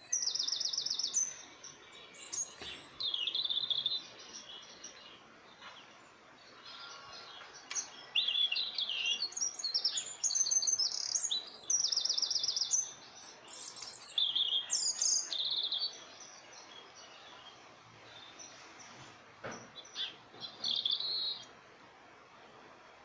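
Small birds chirping and trilling in repeated bursts of high, quick notes, with short pauses between bursts.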